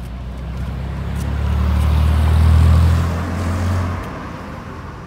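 A motor vehicle passing close by on the road: a low engine hum with tyre noise swells to a peak about two and a half seconds in, then fades away.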